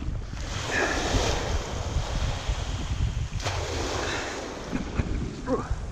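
Small waves washing in over the sand at the water's edge, swelling twice about three seconds apart, with wind rumbling on the microphone.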